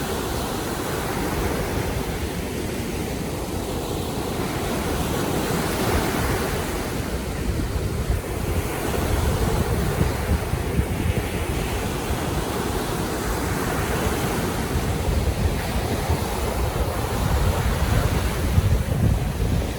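Baltic Sea waves in a steady rushing surf that swells and eases every few seconds, with wind buffeting the microphone, gustier near the end.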